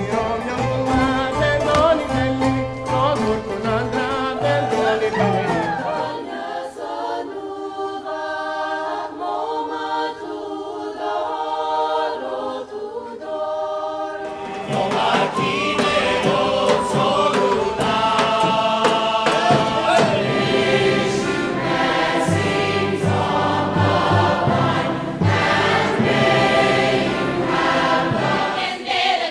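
Choir singing a folk song. For the first few seconds plucked ouds play under the voices; from about six seconds in high women's voices sing alone, and about fourteen seconds in a fuller choir with lower voices joins.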